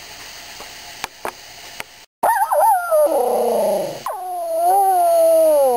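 A small white dog howling: a few faint clicks at first, then after about two seconds a short howl falling in pitch, followed by a long wavering howl that slowly falls and stops near the end.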